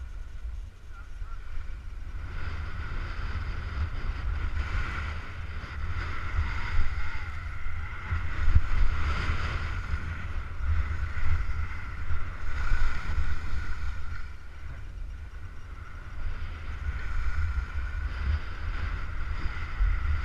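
Wind buffeting a GoPro camera's microphone at skiing speed, with the hiss of skis sliding and carving on groomed snow that swells and fades with the turns.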